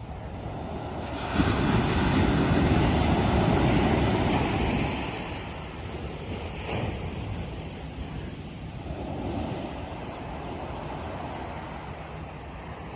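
Ocean surf on a beach: a wave breaks sharply about a second and a half in, its rush of foam and wash running for a few seconds before fading, and a smaller wave washes in later.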